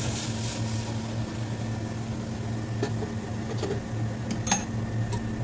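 A steady low machine hum, like a small fan motor, with a few faint light clicks, the clearest about four and a half seconds in.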